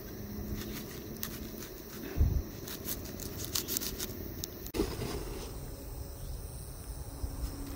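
Kitchen knife cutting into a red onion on a wooden cutting board: a dull knock about two seconds in, then a couple of seconds of crisp crackling clicks as the blade goes through the onion.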